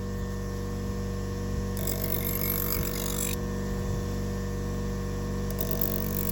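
Electric buffing motor running steadily with a hum, spinning a rock hard felt wheel charged with white compound. A knife edge is drawn lightly across the felt to strip the burr, heard as a hiss about two seconds in that lasts a second and a half, and again near the end.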